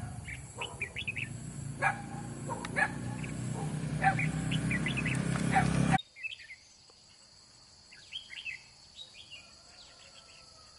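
Red-whiskered bulbuls calling in short, sharp chirped 'ché chét chét' notes. For the first six seconds the calls sit over a steady low rumble that grows louder. After an abrupt cut the calls carry on over a much quieter background.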